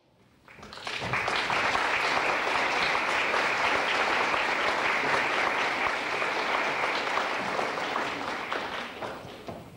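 Concert audience applauding. The applause swells within the first second, holds steady, and dies away near the end.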